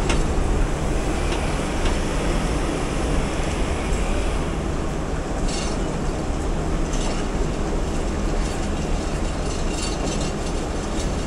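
Awam Express passenger train rolling along the track, a steady rumble of the carriages heard from on board, with a few short high-pitched sounds in the second half.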